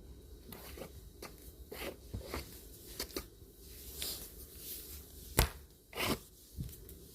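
Irregular clicks, knocks and rustling of household items being handled and moved while a room is tidied. There is a sharp knock about five seconds in, followed by a short scrape or rustle.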